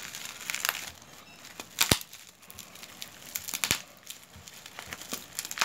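Plastic packaging wrap being torn and crinkled by hand: irregular crackling rustles with two sharp snaps, the first about two seconds in and the second about two seconds later.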